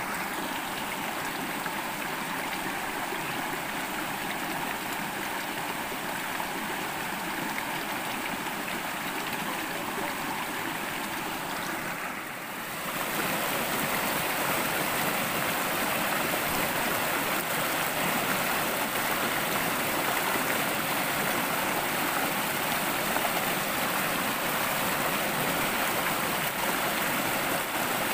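Small rocky forest river rushing over stones: a steady wash of running water, which dips briefly about twelve seconds in and then runs on a little louder.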